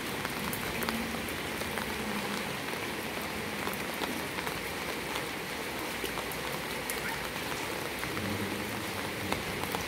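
Heavy rain falling steadily on a flooded paved lane and its puddles: an even hiss with scattered sharp drop ticks.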